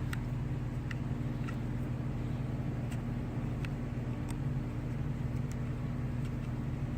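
A steady, low mechanical hum from a motor or engine running in the background, with a few faint light clicks of small plastic and metal parts being handled.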